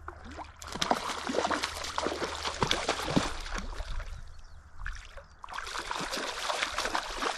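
River water splashing and sloshing irregularly as a hooked brown trout is played and drawn in through the shallows by a wading angler, easing off briefly about four seconds in.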